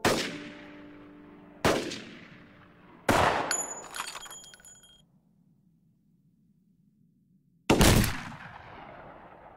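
Four single rifle shots from scoped sniper rifles, each ringing out with a short echo. The first three come about a second and a half apart, then after a pause comes the fourth, the loudest. Light metallic clinks follow the third shot.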